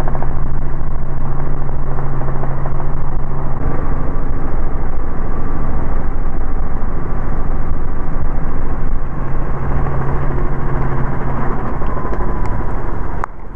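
Robinson R44 helicopter heard from inside the cabin: its six-cylinder Lycoming piston engine and rotor running as a steady, loud drone with a low hum. The sound cuts off suddenly near the end.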